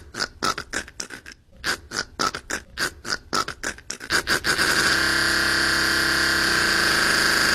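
A fast, irregular run of short sharp sounds, then, a little over halfway through, a pressure washer running steadily with its spray hissing.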